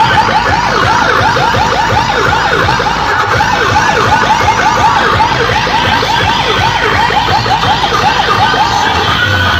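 Rapid yelping siren effect blasted through a DJ street sound system, about four rising-and-falling sweeps a second over a low pulsing bass, stopping just before the end.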